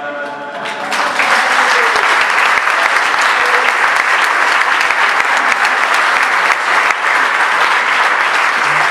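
The final held chord of a male a cappella shanty choir fades out, and about a second in a large audience breaks into steady, loud applause.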